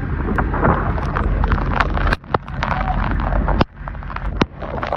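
KAAV7A1 amphibious assault vehicle's diesel engine rumbling steadily as it drives through floodwater, heard under wind buffeting the microphone, with frequent sharp crackles and knocks. The sound briefly drops away twice, about two and three and a half seconds in.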